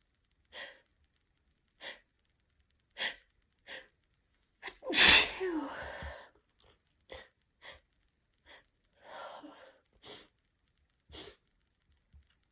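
A woman's big wet sneeze about five seconds in, set off by sniffed chhinkni sneezing powder on top of a head cold. Before and after it come a string of short sharp breaths, about one every second.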